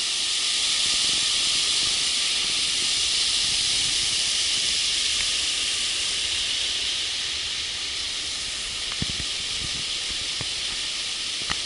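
Mountain stream rushing over a boulder bed, a steady loud hiss of whitewater.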